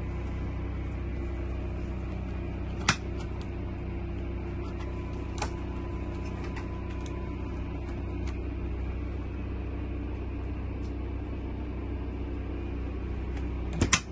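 Steady low mechanical hum in an RV's small cabin, with a few sharp clicks: a loud one about three seconds in, a lighter one a couple of seconds later, and a double click near the end as a hand grips the refrigerator door handle.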